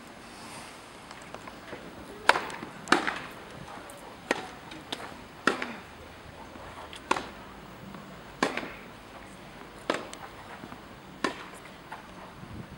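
Tennis ball being struck back and forth by rackets in a rally, with its bounces on the court: a run of sharp hits about every one and a half seconds, starting about two seconds in.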